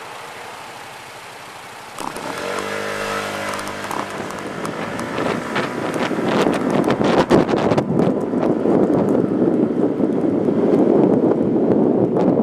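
A vehicle engine pulls away about two seconds in and gets louder as it accelerates. Rushing wind buffets the microphone more and more as speed builds.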